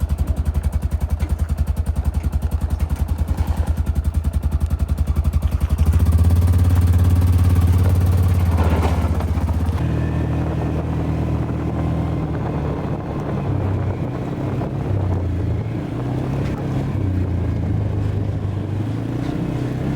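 Side-by-side UTV engine running as it drives, getting louder about six seconds in, then its pitch rising and falling as the speed changes.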